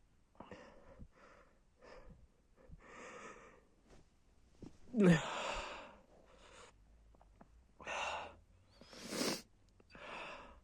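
A man sneezing. Short breaths and sniffs come first, then a loud voiced sneeze about five seconds in, its pitch falling. Three more breathy bursts follow near the end.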